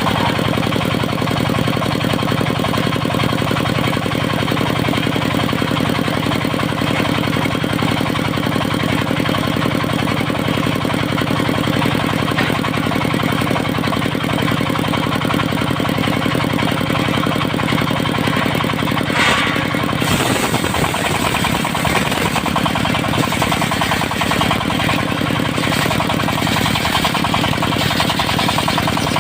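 Engine of a mobile circular sawmill running steadily at a loud, constant speed. About two-thirds of the way through, the sound turns rougher and more chattering.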